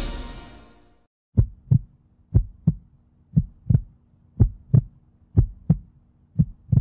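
Theme music fades out in the first second. Then a heartbeat sound effect starts: paired low thumps, lub-dub, about one beat a second, over a faint steady hum.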